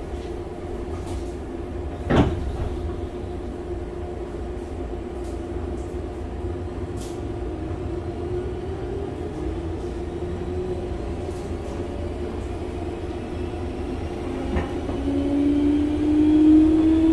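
Inside a Meitetsu 5000 series field-chopper-controlled electric train under way: a low running rumble with the traction motors' whine slowly rising in pitch as the train gathers speed. The whine grows louder and climbs more clearly near the end. A single knock comes about two seconds in.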